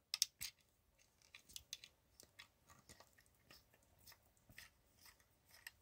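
Near silence with faint, scattered clicks and taps of a small screwdriver and hands working screws out of the plastic base of a diecast car lift.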